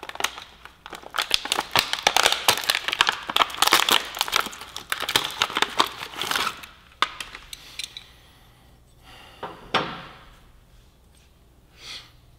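Clear plastic packaging of new brake pads crinkled and pulled open by hand: a dense run of crackling for several seconds, then a few light clicks near the end.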